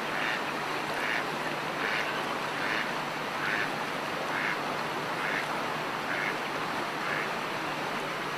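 A duck quacking in a steady series, about nine calls a little under a second apart, growing fainter near the end, over a steady background hiss.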